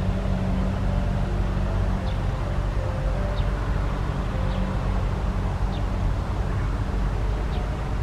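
A steady low mechanical hum, like a distant engine, with a few faint, short high-pitched bird chirps now and then.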